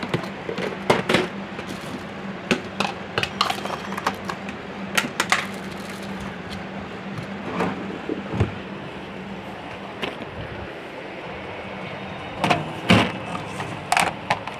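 Plastic storage boxes and a wooden drawer being handled while paint colours are taken out: irregular knocks, clicks and rattles, with a cluster of louder knocks near the end. A faint steady hum runs underneath.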